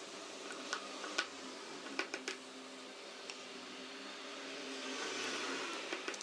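Scattered small sharp clicks and taps of a precision screwdriver and tiny screws being fitted into an iPhone 4S during reassembly, over a steady low hiss.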